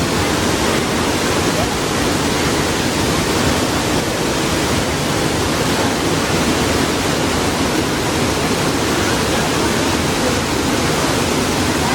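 Waterfall rushing, a loud steady roar of falling water close by.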